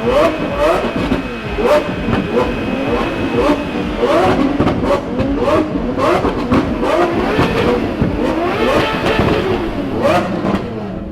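Ferrari F12 Berlinetta's 6.3-litre V12 being revved over and over in quick blips, the pitch climbing sharply with each one and dropping back between them.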